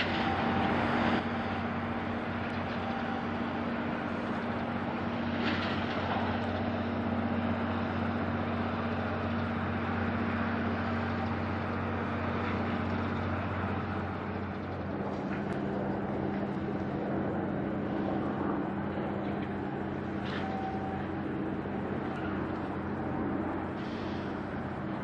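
Steady low drone of a ship's diesel engine with a faint higher hum; the drone's pitch shifts slightly a little past halfway.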